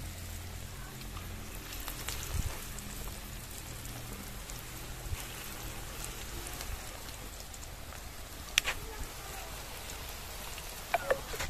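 Pakoras deep-frying in hot oil in a kadhai: a steady sizzle with small crackles. A sharp click sounds about three-quarters of the way through, and a couple more come near the end.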